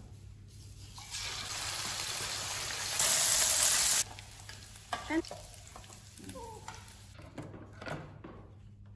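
Food sizzling as it fries in oil in a frying pan, stirred with a metal spatula. The sizzle cuts in about a second in, grows louder, and stops abruptly partway through, leaving only a few faint short sounds.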